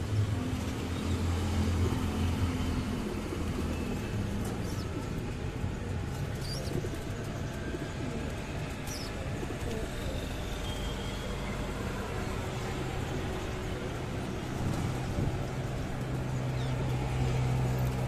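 Pigeons cooing close by in low, drawn-out coos, strongest in the first few seconds and again near the end, over the steady hum of city road traffic.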